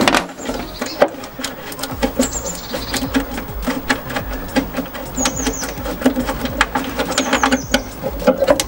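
Hand ratchet with a socket clicking in quick runs while the battery hold-down fasteners are undone.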